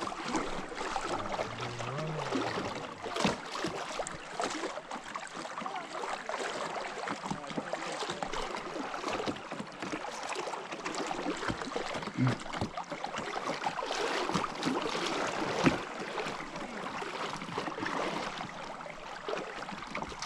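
River water running and lapping around a fishing boat, a steady rush, with scattered small knocks and clicks throughout.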